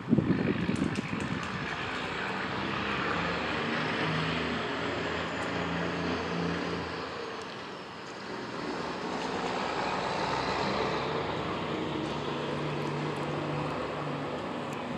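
Distant diesel freight locomotive approaching, a steady low engine drone under a broad rumble. Wind buffets the microphone briefly at the start.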